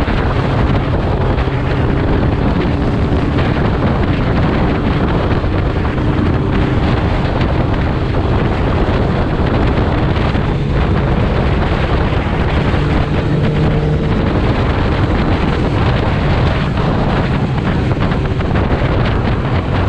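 Motorcycle engine running at a steady cruise, heavily buffeted by wind on the microphone.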